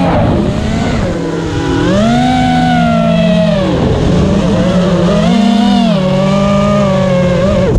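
FPV quadcopter's brushless motors whining, the pitch rising and falling with the throttle and dipping low about four seconds in. The sound cuts off suddenly at the end.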